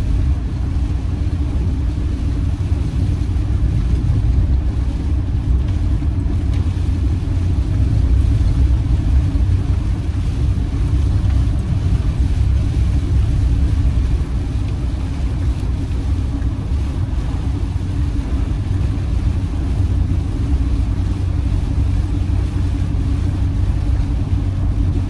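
Steady low rumble of engine and road noise inside a campervan's cab while it is driven along at a constant moderate speed.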